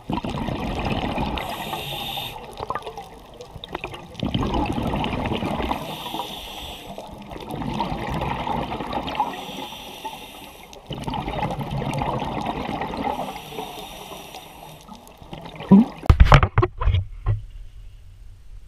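Scuba diver breathing through a regulator underwater: a hiss of inhalation followed by a rush of exhaled bubbles, repeating about every four seconds. Near the end, a few loud knocks.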